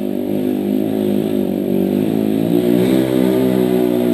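Trail motorcycle engine running, its revs wavering and climbing a little near the end.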